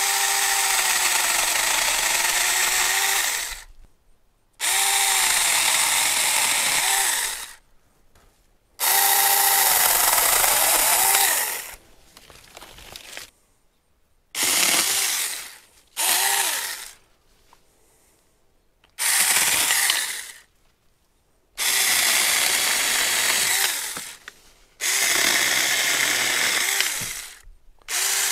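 Saker cordless mini electric chainsaw run in short bursts, about eight times, cutting small tree branches. Its motor whine dips in pitch as the chain bites into the wood and recovers, with short quiet gaps between cuts.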